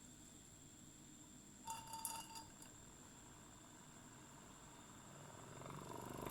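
Near silence, broken about two seconds in by a brief cluster of light clicks and clinks as the switch of a cardboard toy washing machine is pressed. Near the end its small motor begins to spin up, growing louder.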